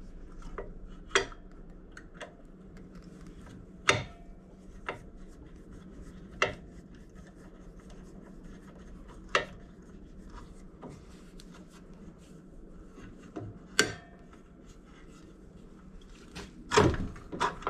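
Scattered light clicks and knocks of a T-handle hex key, screws and the steel platen being fitted onto a belt grinder, with a louder knock near the end, over a steady low hum.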